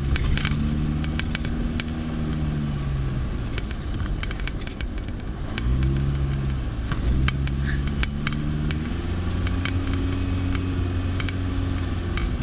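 Car engine pulling under acceleration, its note rising and falling as it speeds up, and easing off briefly about four seconds in. Many sharp clicks and knocks sound throughout as the car bounces over a rough dirt road.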